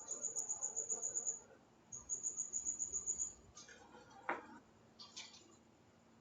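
Two high-pitched insect trills, each about a second and a half long and pulsing rapidly at roughly nine pulses a second. A single short knock comes about four seconds in.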